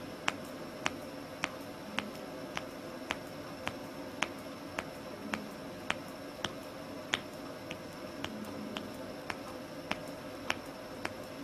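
Middle finger joints being cracked over and over: a sharp knuckle crack roughly every half second, about twenty in all, over a faint steady hum.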